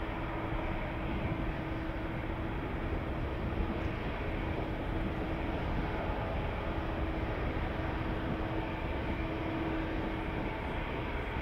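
Twin jet engines of a Boeing 777-200ER at low power as the airliner taxis slowly: a steady rumble with a steady hum through it that drops out now and then.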